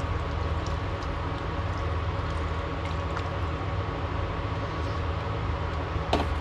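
Steady low electrical hum with a faint steady whine above it, from the digital electric burners running under the dye pan. A single sharp click comes near the end.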